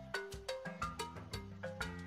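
Background music: a light melody of quick, evenly struck notes over a steady bass line.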